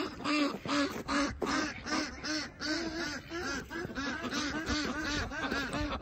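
Farm poultry calling over and over, a steady string of short nasal calls about three a second from several birds at once, with wind rumbling on the microphone.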